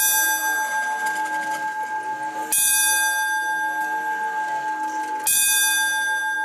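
A bell tolling, struck about every two and a half to three seconds, each stroke ringing on until the next.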